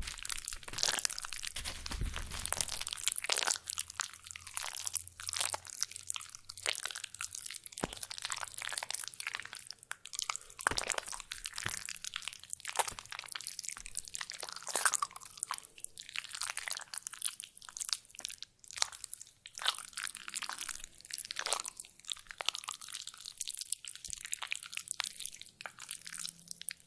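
A banana being squished by hand, making a continuous run of wet, sticky squelches and crackles.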